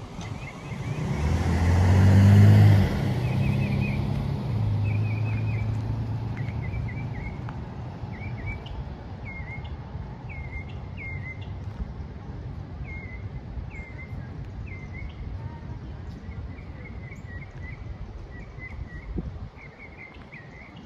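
A motor vehicle drives past close by, its engine hum and tyre noise swelling to their loudest about two seconds in, then fading away over the next few seconds. A bird sings short repeated chirps throughout.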